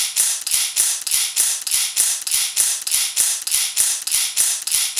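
Rapid, evenly spaced mechanical clicking, about four to five clicks a second, steady and unbroken, starting suddenly.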